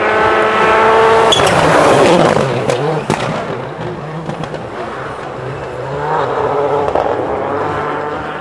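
Rally car at full throttle coming past: the engine note climbs, then a rush of noise with a few sharp cracks as it goes by about a second in, and the engine fades away with the revs rising and falling through the gears.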